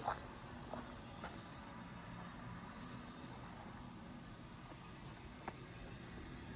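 Quiet outdoor background with a faint steady hum and a few scattered soft footsteps on brick pavers: a couple in the first second and a half, and one more about five and a half seconds in.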